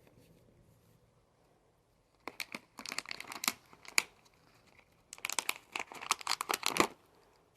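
Crinkling and crackling of a crumpled material, in two bursts of rapid crackles: one starting about two seconds in and a second about five seconds in.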